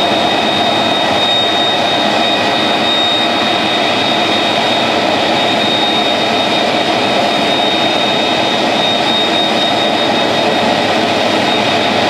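Airbus A330's twin turbofan engines running at idle as the airliner taxis in: a steady high whine over a constant rush of jet noise.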